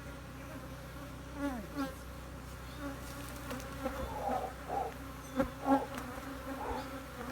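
Honeybees humming in a steady drone around an open hive, with single bees buzzing close past the microphone in wavering passes; the colony is getting agitated, its hum growing more intense. Two sharp knocks sound about five and a half seconds in.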